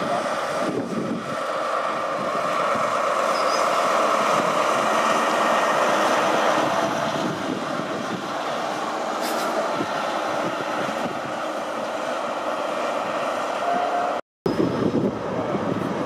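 A High Speed Train (InterCity 125) on the move: the coaches running over the rails and the Class 43 diesel power car's engine drone, growing louder over the first few seconds and then holding steady. The sound cuts out briefly near the end, then train noise resumes.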